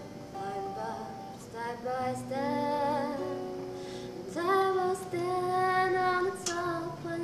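A woman singing a slow melody with long held notes, accompanied by her own acoustic guitar.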